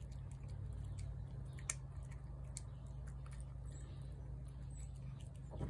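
A cat eating canned wet food from a plate: faint, scattered chewing clicks, with one sharper click a little under two seconds in, over a steady low hum.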